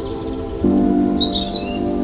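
Birds chirping in short high notes, starting about a second in, over a soft held music chord that changes to a new chord about half a second in.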